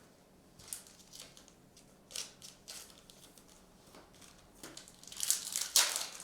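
Chrome trading cards being flipped through by hand: short swishes of card sliding over card, a few faint ones, then a louder cluster near the end.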